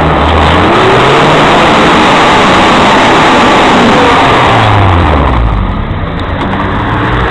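Off-road vehicle's engine revving hard under load. About five seconds in, the revs drop back and the engine note falls lower and quieter.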